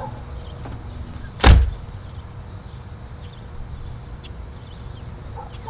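A front door slams shut once, a heavy thud about a second and a half in.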